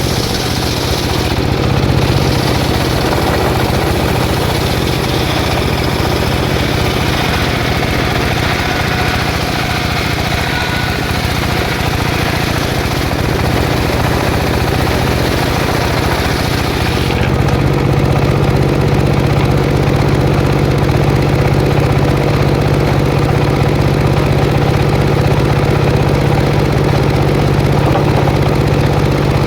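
Two-stroke chainsaw running continuously while cutting jackfruit wood into board stock. About 17 seconds in, the high hiss falls away and the low engine hum gets stronger and steadier.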